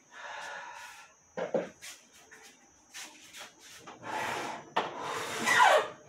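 Rubbing and scraping noises with scattered clicks, a sharp knock about a second and a half in, and a short falling squeak near the end, the loudest moment: things being handled and scrubbed during refrigerator cleaning.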